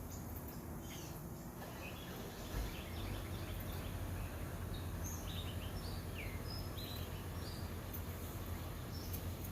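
Birds chirping, short scattered high chirps mostly in the middle stretch, over a steady low background rumble.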